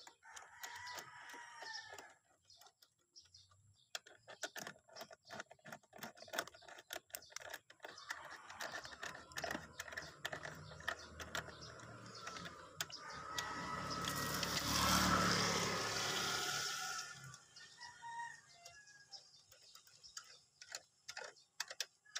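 Light, irregular metal clicks of a hand nut driver turning the bolts of a stainless bag bracket under a scooter seat. A rooster and chickens call in the background, and a louder rushing noise swells and fades about two-thirds of the way through.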